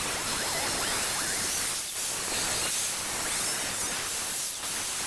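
Angle grinder disc cutting into the steel of an excavator dipper arm, a steady hissing grind with brief dips about two seconds in and again near the end. It is gouging a V-groove out along a crack so the crack can be filled with weld.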